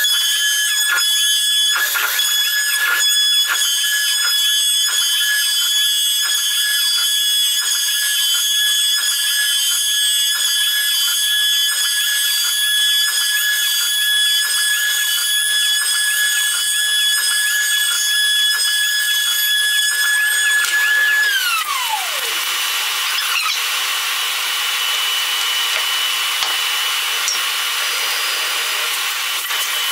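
CNC router spindle whining at a steady high pitch as its spiral bit cuts a round pocket into an old oak beam. About 21 seconds in, the whine drops in pitch and falls away, leaving a steady hiss with a fainter high tone.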